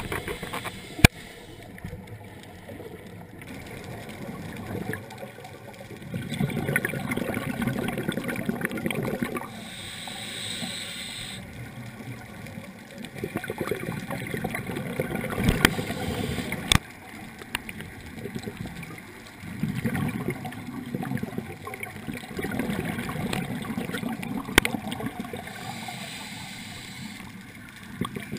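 Scuba regulator bubbles gurgling underwater, coming in bursts a few seconds long with quieter gaps between breaths. A few sharp clicks, the loudest about a second in.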